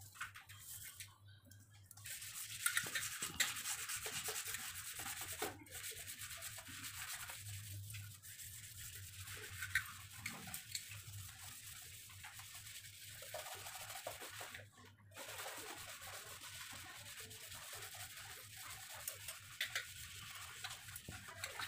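Soapy scrubber scouring a stainless steel sink basin: a faint, steady scratchy rubbing that starts about two seconds in and stops briefly a few times.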